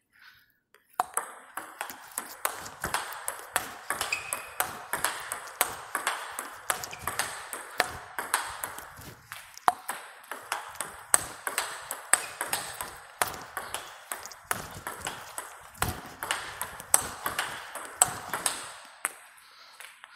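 Table tennis rally of forehand topspins: a quick, uneven run of sharp ball clicks off rackets and table. It starts about a second in and stops shortly before the end.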